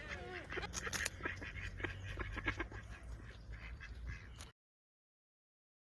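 Short animal calls mixed with many clicks over a low rumble, cutting off abruptly to silence about four and a half seconds in.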